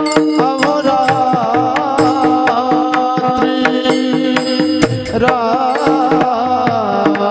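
Marathi devotional kirtan music. A man sings a wavering, ornamented melody over a steady drone, while small hand cymbals (tal) and a drum keep a regular beat.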